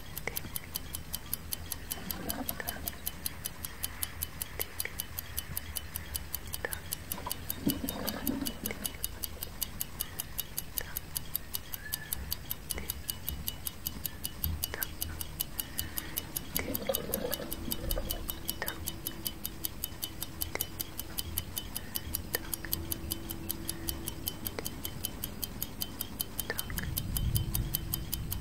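Clock ticking steadily in an even tick-tock rhythm, with a low rumble swelling near the end.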